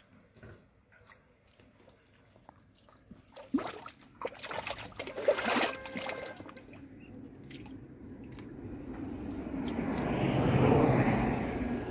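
Hands and feet working through wet mud and shallow muddy water in a drained ditch. Faint squelches and drips give way to sharper squelches about four seconds in, then a swelling slosh that is loudest near the end.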